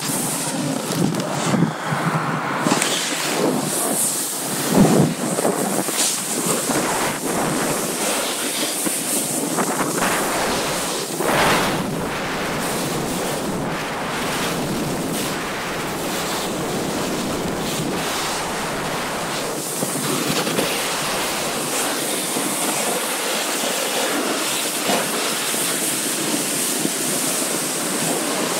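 Wind rushing over an action camera's microphone during a run down a groomed slope, mixed with the hiss and scrape of edges on hard-packed snow. In the first few seconds, as snow sprays over the lens, there are louder scrapes and thumps; after that the rush settles to a steady noise.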